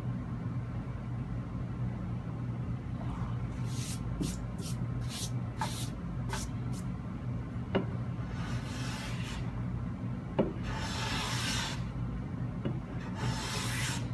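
Metal hand plane taking light finishing passes over a wooden panel: a run of short quick strokes about four seconds in, then three longer shaving swishes of the blade across the wood. Two light knocks come between the swishes, over a steady low hum.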